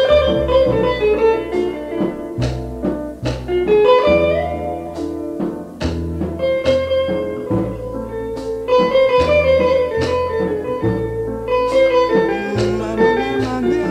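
Instrumental music with no singing: a plucked guitar melody over held bass notes.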